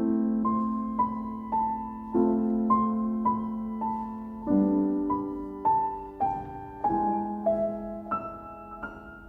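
Background music: a gentle piano melody, notes struck about twice a second over sustained low chords.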